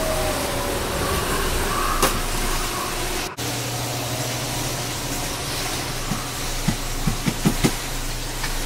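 Steady rushing, hissing air noise, cold air blowing in a walk-in freezer, with a faint wavering tone in the first second and a brief dropout about three seconds in. A few short knocks come close together near the end.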